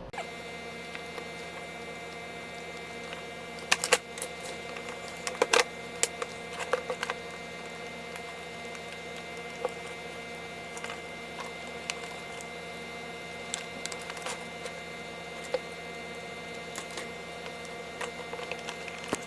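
A steady electrical hum with scattered sharp clicks and taps, loudest about four and five and a half seconds in: plastic parts of a jump starter's housing being handled and put back together.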